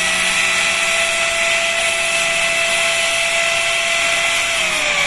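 Small electric power-tool motor running at full speed with a steady high whine. Near the end it is switched off and the whine starts to fall as the motor winds down.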